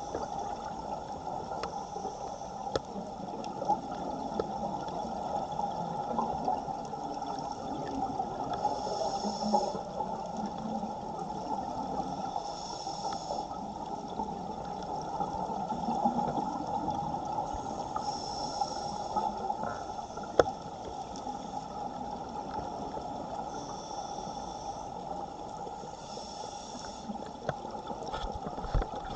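Underwater recording from a diver in a strong current: a steady rush of water flowing past, with a short hiss of the scuba regulator's breathing every few seconds.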